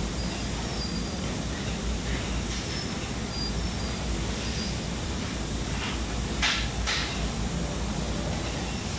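Steady background hiss and hum, with two brief scratchy clicks close together about six and a half seconds in as tweezers work the pins of a small wire connector.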